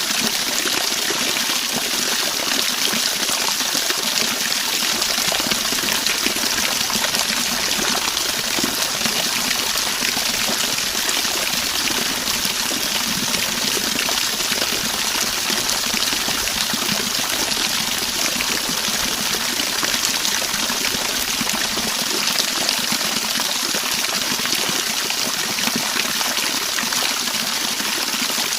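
Waterfall: a steady, unbroken rush of falling water, hissy and bright rather than deep.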